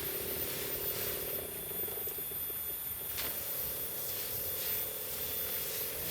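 Crop sprayer hissing steadily as it sprays chili plants, with a steady hum underneath.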